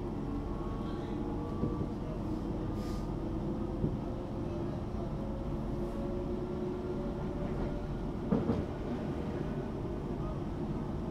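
Passenger cabin of a Bombardier Class 378 electric train running between stations: the traction motors whine in steady tones over the continuous rumble of the wheels on the track. A short clatter comes about eight seconds in.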